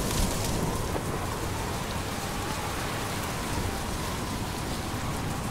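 Storm sound of strong wind gusting hard, over a steady low rumble of thunder, with a brief louder gust just after the start.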